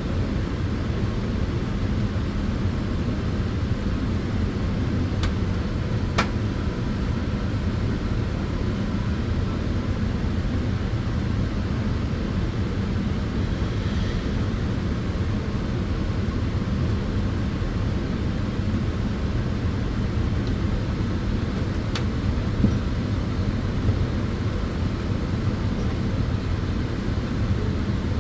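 Tanning bed's cooling fans running in a steady low rumble with a faint hum, broken by a couple of faint clicks.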